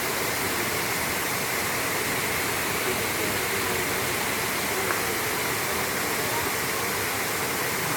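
Waterfall: water falling and splashing into a pool in a steady, unbroken rush.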